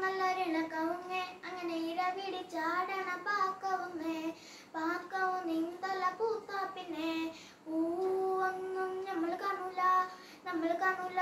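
A young boy singing solo with no instruments, in long held notes, pausing briefly for breath between phrases.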